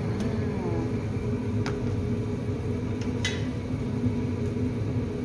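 Steady low mechanical hum, with two short light clicks, one a little under two seconds in and one just past three seconds.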